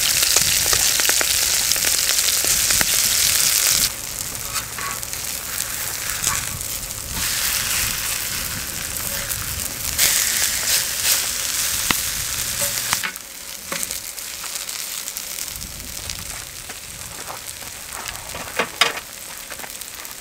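Batter pancakes of spring greens (toon shoots, stonecrop, water dropwort) sizzling as they fry in oil. The sizzle is loudest for the first few seconds, then quieter, with a few sharp taps near the end.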